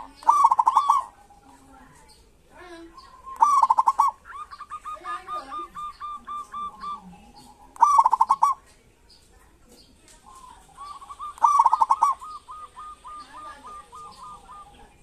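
Zebra doves (local perkutut) calling: four loud, short, rapid rattling bursts (the kerot call), some of them trailing into a run of softer, evenly spaced notes.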